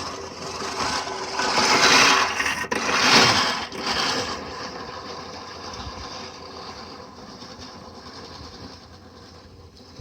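Push reel lawnmower cutting grass, its spinning reel blades whirring and clipping against the bed knife. Louder for the first four seconds, then gradually fading.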